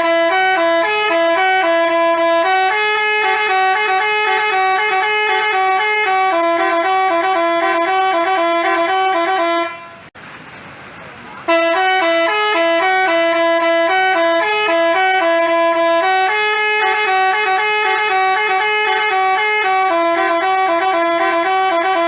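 Telolet 'basuri' musical horn playing a tune of stepped, held notes. It stops for about a second and a half about ten seconds in, then plays the tune again.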